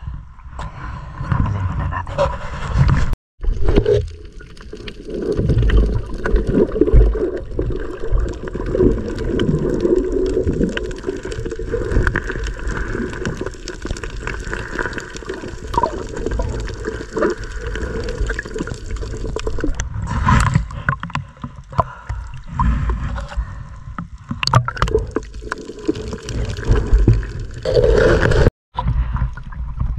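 Muffled underwater sound of sea water sloshing and gurgling around a submerged action camera, with a few short knocks from handling. It cuts out briefly twice.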